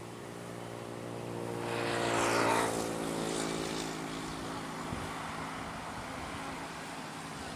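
Bus passing on the road: its engine hum and tyre noise swell to their loudest about two and a half seconds in, then ease off as it moves away.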